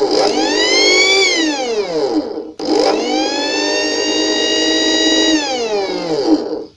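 Small brushed DC motor on half-wave rectified current from a roughly 40 V transformer, whining as it spins up and winding down in pitch as the hand-held wire contact is made and broken, twice. The second run starts abruptly and holds a steady high speed before it dies away. The motor is overdriven well beyond its rated voltage, enough to throw fire from it.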